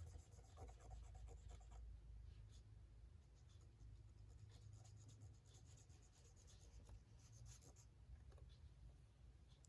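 Faint scratching and rubbing on paper as fountain pen ink is swatched, in short irregular strokes over a low steady hum.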